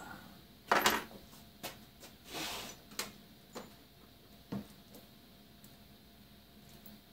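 Scattered knocks and clicks of objects being handled, the loudest a clatter just under a second in, then a short rustle and a few light clicks.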